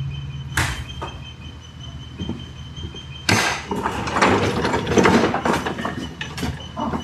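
Plastic trim and a vent pipe being worked loose by hand. There is a sharp click about half a second in, then from about three seconds in a busy run of scraping, clattering and clicking.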